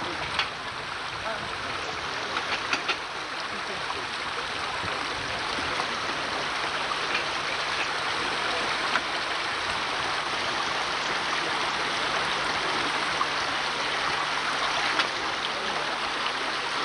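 Steady rushing of running water from a stream, with a few sharp knocks, a handful near the start and one near the end.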